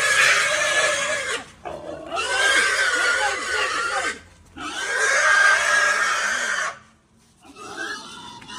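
Domestic pig squealing loudly: three long, harsh squeals of one to two seconds each, then a quieter one near the end.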